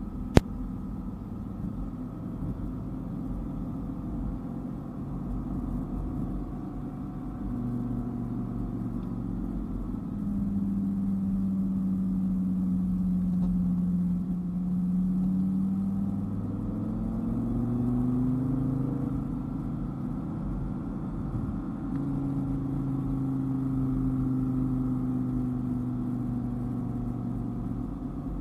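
Dodge Viper's V10 engine running over steady road and tyre rumble. The engine note holds steady, climbs in pitch around the middle as the car accelerates, then settles again. A single sharp click sounds right at the start.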